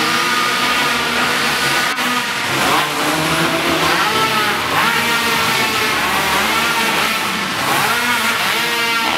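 Several racing quad (ATV) engines revving up and down over and over, their pitch rising and falling as the riders throttle through the track, over a steady din of engine noise. A single sharp click about two seconds in.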